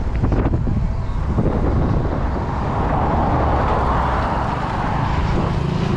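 Wind buffeting the microphone while riding a bicycle along a road, with traffic noise. A broad rush of noise swells in the middle and then fades, like a vehicle going by.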